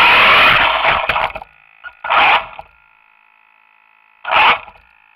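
Radio-controlled toy car's electric motor and drivetrain running, heard up close from the car itself. It cuts out about a second and a half in. Then come two short bursts of the motor about two seconds apart, with a faint steady high whine in between.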